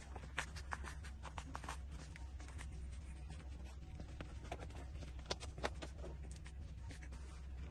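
18-day-old puppies suckling at their mother's teats: soft, irregular clicking, a few clicks a second, over a low steady hum.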